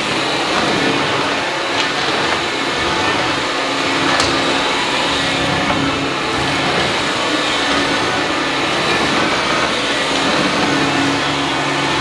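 Makita DVC560Z 18V cordless upright vacuum cleaner running steadily as it is pushed over a hard laminate floor: a constant motor hum with a rush of suction air.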